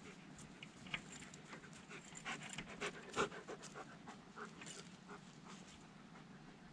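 A dog panting close by, with a scatter of light clicks and rustles; the loudest comes about three seconds in.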